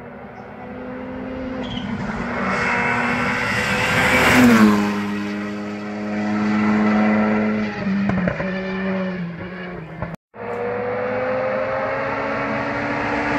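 WRC rally cars running flat out on a mountain stage: the engine note climbs, drops sharply about four and a half seconds in at its loudest, then holds steady and steps lower. After a short break just past ten seconds, another car's engine rises in pitch.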